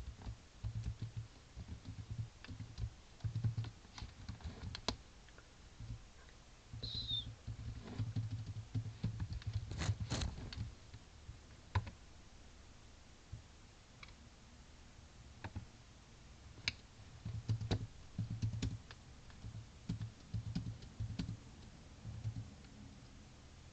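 Computer keyboard typing in irregular runs of keystrokes with short pauses between them, and a few sharper single clicks.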